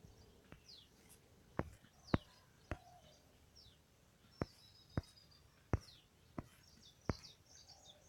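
Faint birds chirping in the background, short high notes scattered through, with about nine sharp clicks at irregular spacing standing out above them.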